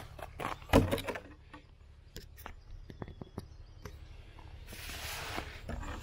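Footsteps crunching on crusted snow: a few heavy steps in the first second, then sparser, lighter crunches and clicks. A soft rushing hiss comes in near the end.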